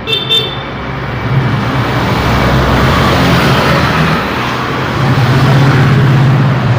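Busy city road traffic: the engines and tyre noise of passing vehicles. The heaviest engine hum swells about five seconds in and stays loudest until near the end. Two short high-pitched tones sound right at the start.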